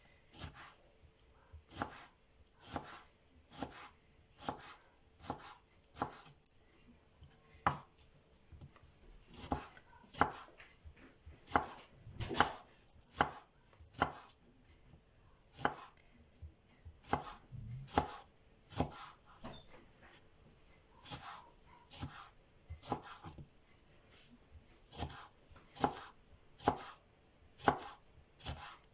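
Kitchen knife slicing lemons into thin rounds, each cut ending in a sharp knock, a little more than once a second and unevenly spaced.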